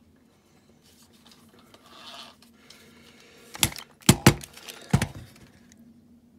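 Small metal parts clicking and knocking on a workbench while a diecast toy van is being dismantled: a brief scrape about two seconds in, then four sharp clicks in quick succession.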